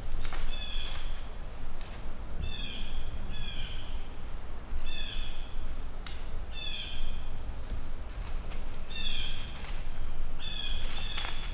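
A bird in woodland calling repeatedly: about eight short, harsh, slightly falling calls at uneven intervals, with a sharp click about six seconds in.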